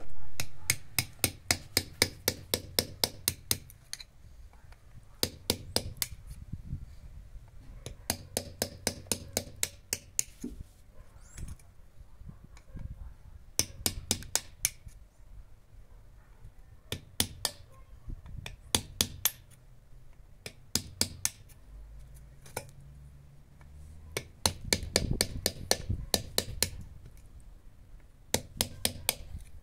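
Hammer tapping a steel chisel along a hollow fired-clay brick, scoring it to cut it by hand. The sharp strikes come in quick runs of about five a second, with short pauses between runs.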